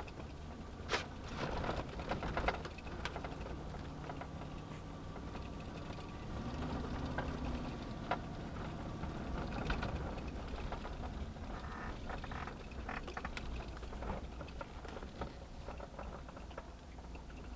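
Chevy pickup driving over a bumpy back road, heard from inside the cab: steady engine and road drone with scattered knocks and rattles from the bumps, and the engine note rising briefly about six seconds in. The engine keeps running over the bumps, its bad engine ground wire now repaired.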